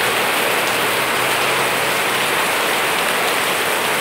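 Steady rain falling on leafy garden plants.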